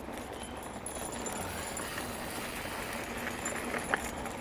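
Mountain bike rolling along a dirt trail: steady tyre and trail noise with bike rattle, and a sharp knock near the end.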